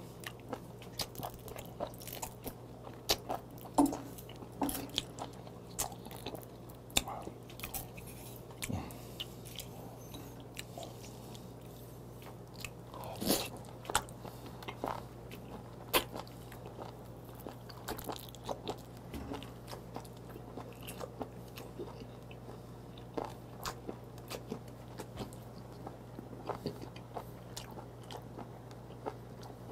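Close-miked wet chewing and lip-smacking of a person eating whole live small octopus, with irregular sticky clicks and a few louder smacks. A steady low hum runs underneath.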